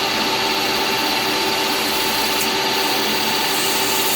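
A CNC mill-turn lathe's slotting blade cutting grooves in a Delrin part in repeated passes to widen each groove. It makes a steady hiss with a faint constant whine.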